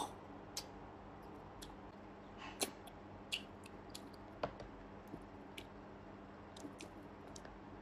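Scattered small clicks and crackles of food being eaten and handled by hand, with some chewing, loudest about two and a half seconds in.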